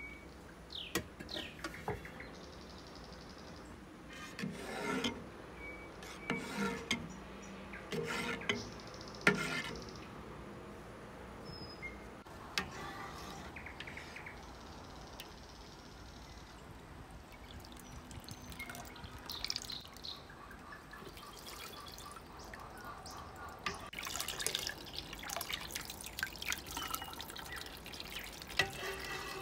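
Fresh cow's-milk curds being scooped with a metal spoon from a pot of whey into a plastic colander: irregular bursts of liquid sloshing and dripping, with the odd click of the spoon. The sounds come in two busy spells, early on and again in the last few seconds.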